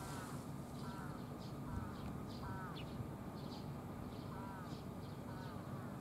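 Birds calling: a short arched call repeating about once a second, mixed with brief high falling chirps, over a steady low hum.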